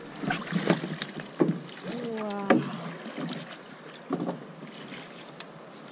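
Scattered knocks and clunks in a drift boat as gear and the landed fish are handled, with a brief pitched sound about two seconds in.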